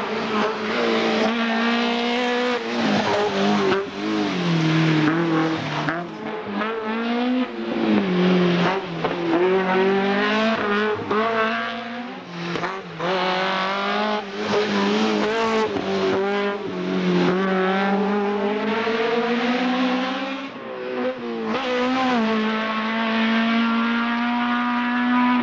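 Peugeot 205 Groupe F2000 rally car's four-cylinder engine revving hard through the gears, its pitch climbing and then dropping at each gear change, over several passes.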